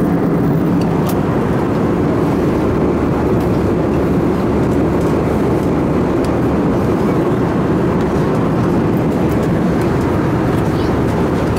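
Steady drone of an airplane in flight, heard from inside the cabin: an even roar of engines and rushing air with no change in level.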